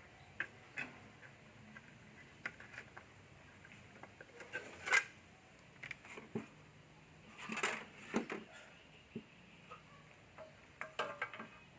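Scattered small clicks, clinks and knocks of tools and hard parts being handled at an electrical breaker box under repair, the loudest about five seconds in and around eight seconds, with a quick run of clicks near the end.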